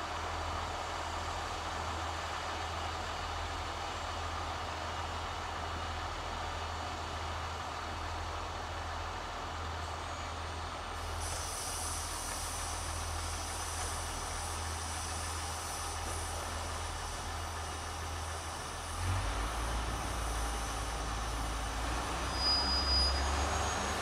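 Diesel engine of a rail track maintenance vehicle running steadily, with a high hiss joining about halfway. A little before the end the engine grows louder and deeper, as if revving up to move off.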